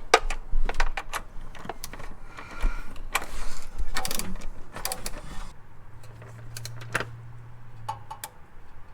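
Irregular metallic clicks and clinks of a wrench and socket working the 12mm bolts that hold in the rear shifter bushing. A low hum runs for a couple of seconds late on.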